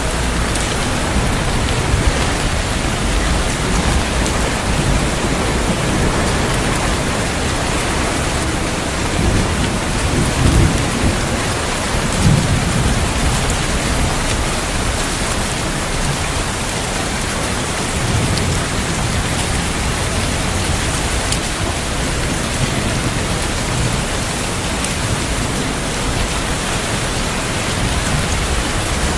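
Heavy, steady rain falling, with low rolls of thunder swelling up about a third of the way in and again a little past the middle.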